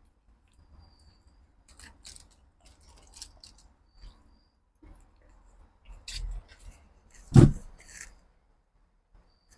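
Scattered small clicks and crinkles of someone eating and handling food, with one loud thump a little past seven seconds.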